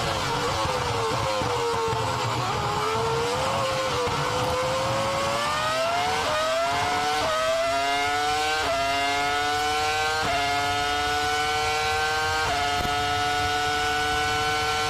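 Formula 1 car engine heard onboard: the revs fall as the car slows into a corner, then climb as it accelerates out, with quick upshifts about seven, nine, ten and twelve seconds in, the pitch dropping at each gear change and rising again.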